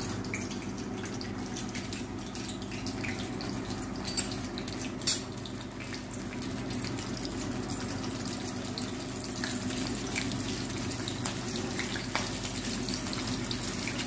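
Panch phutan and green chillies sizzling in hot oil in a kadai, a steady hiss with a couple of sharp pops about four and five seconds in.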